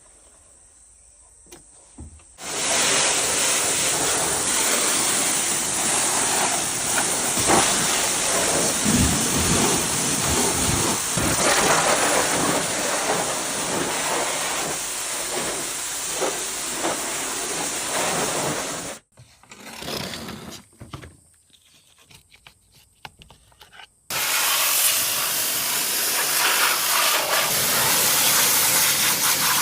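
High-pressure washer jet spraying a muddy car, a loud steady hiss that starts about two seconds in, cuts out for about five seconds past the middle, then starts again.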